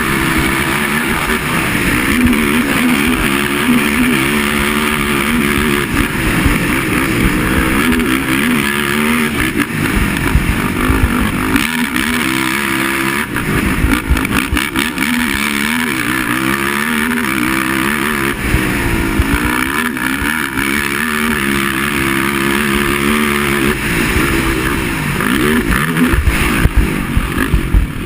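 Racing quad (ATV) engines revving hard, the pitch climbing and dropping off again and again as the machines accelerate and back off.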